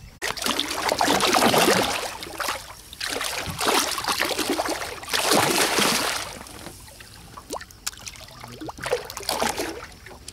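Hooked golden dorado thrashing and splashing at the surface beside the boat: three loud bursts of splashing in the first six seconds, then a few smaller splashes.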